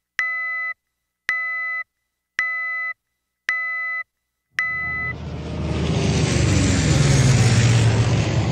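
Five identical electronic beeps, each about half a second long and evenly spaced about a second apart like a countdown, followed by a rushing whoosh with a low sliding drone that swells for a few seconds and then fades.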